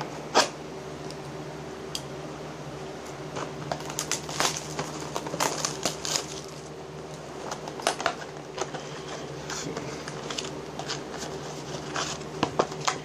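Plastic shrink-wrap being torn off a cardboard trading-card blaster box, then the box being opened: irregular crackling and small clicks, busiest in the middle, over a steady low hum.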